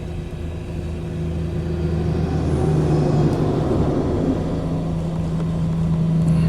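Steady engine hum and heavy road rumble of an oversize mining-truck road transport passing close by, swelling louder about two to three seconds in.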